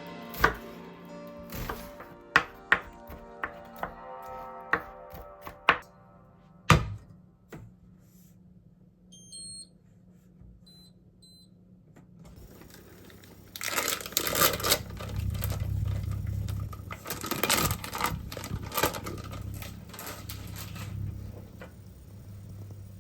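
Kitchen knife chopping on a cutting board, a string of sharp knocks, over soft background music during the first several seconds. A few short high beeps come about ten seconds in, then a louder stretch of clattering, rustling kitchen noise over a steady low hum.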